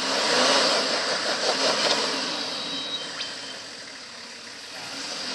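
Nissan Patrol four-wheel drive's engine running under load as it strains to climb out of the rut it is stuck in. It swells to its loudest about half a second in, then eases off.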